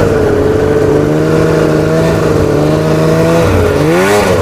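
Ski-Doo MXZ snowmobile's 700 two-stroke twin, fitted with a full Dyno Port exhaust, running at a steady throttle under way. About three and a half seconds in the engine note drops, then revs back up near the end.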